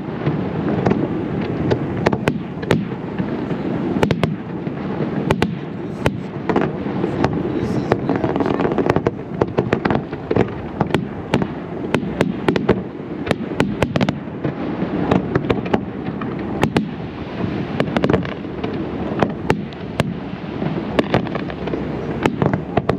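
Zambelli aerial fireworks display: a fast, irregular string of sharp bangs and crackles, several a second, over a steady low din.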